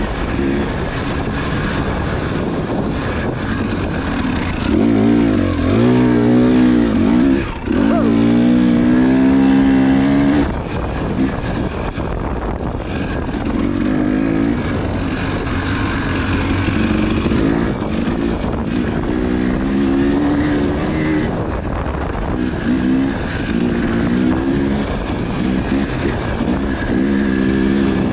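Husqvarna dirt bike engine heard from on board, revving up and down repeatedly under hard throttle, the throttle briefly shut off about seven and ten seconds in.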